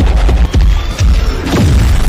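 Loud dramatic soundtrack music with several heavy booming impact hits, under half a second to a second apart.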